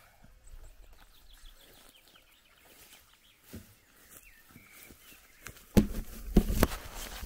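Faint bird chirps over quiet outdoor ambience, then near the end a short cluster of loud knocks and thuds as the camera is handled and moved.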